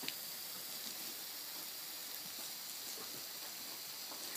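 Steady hiss of a lawn sprinkler's water jet spraying over grass.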